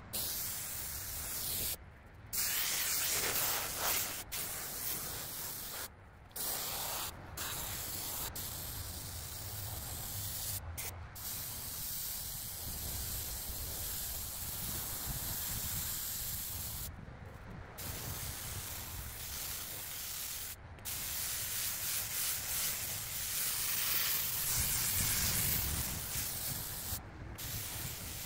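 Compressed-air spray gun hissing steadily as it sprays contact adhesive, cut off briefly several times when the trigger is let go.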